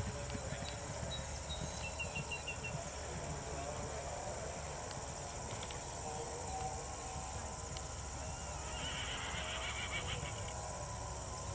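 Faint hoofbeats of a grey Thoroughbred horse cantering over turf, in open-air ambience. A few quick high chirps sound about two seconds in, and a brief high chirring about nine seconds in.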